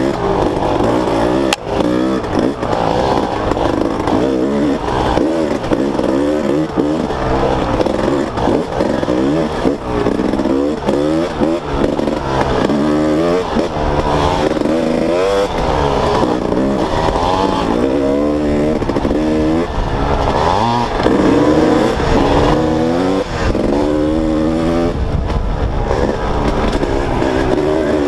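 Two-stroke dirt bike engine being ridden on a rough trail, its pitch rising and falling again and again as the throttle is blipped on and off. A single sharp click comes about a second and a half in.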